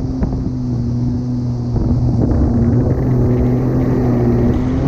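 Jet ski engine running steadily at speed while towing a tube, with the rush of water from the churning wake.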